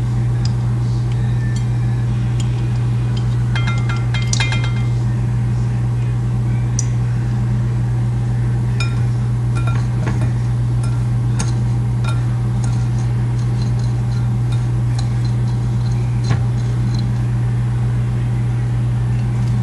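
A steady low hum with scattered light clinks and taps of a bowl and utensils, a small cluster about four seconds in.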